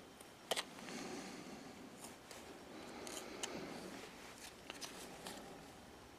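Carving knife whittling a small wooden figure: scattered faint clicks and snicks of the blade cutting wood, one sharper about half a second in, over soft rubbing of gloved hands on the work.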